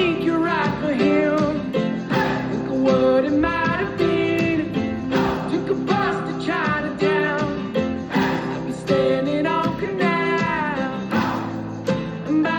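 Background music: a song with singing over plucked guitar.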